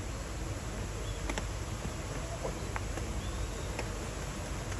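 Steady hiss of rain falling outdoors over a low rumble, with a few faint scattered ticks.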